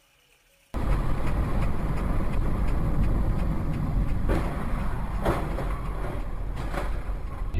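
Steady engine and tyre noise of a car driving on a wet road, heard from inside the car, starting abruptly about a second in. Three short clicks or knocks fall in the second half.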